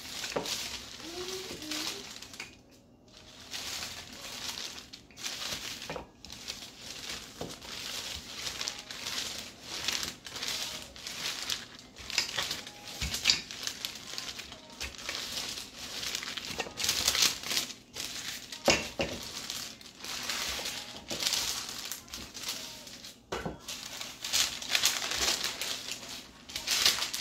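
Baking paper crinkling and rustling as a wooden rolling pin rolls dough back and forth between two sheets, in repeated strokes, with a few light knocks. Near the end the top sheet is lifted off with a crinkle.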